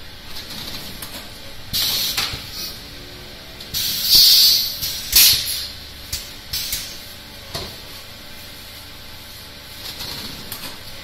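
Filling machine dispensing boiled brown cabbage through a hand-held hose nozzle, with short hissing bursts as each portion is released, the loudest about four to five seconds in, over a low steady machine hum.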